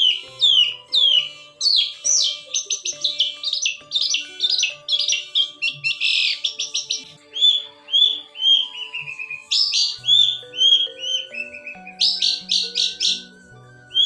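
Long-tailed shrike singing in full voice: strings of sharply falling whistled notes, rapid harsh chattering phrases, and runs of notes stepping down in pitch. Quiet background music with low notes plays underneath.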